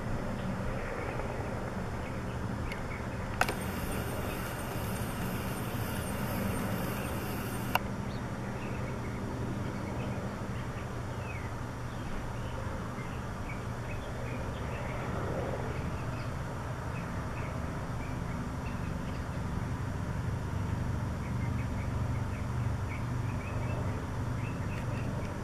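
City street ambience: a steady low traffic rumble with scattered faint bird chirps. Two sharp clicks about four seconds apart, with a brief high hiss between them, come early in the sound.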